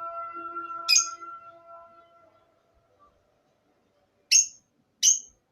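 A bird giving three short, sharp high chirps, about a second in and twice near the end. A steady humming tone underneath fades out in the first two seconds.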